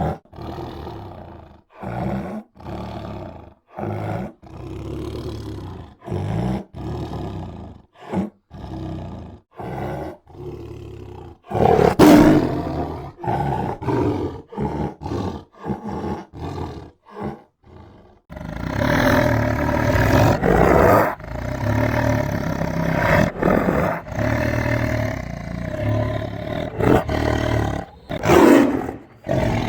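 Tiger roaring again and again, in separate roars with short pauses between them, then from about halfway through in a denser run of roaring without breaks.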